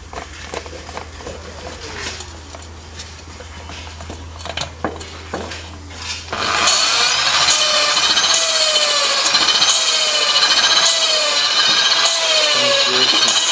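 Light clicks and knocks of the valve and cylinder head being handled. About six seconds in, an electric hand drill starts spinning a valve against its seat in a VW air-cooled cylinder head, lapping it in with coarse grinding paste: a loud steady grinding rasp whose pitch wavers up and down.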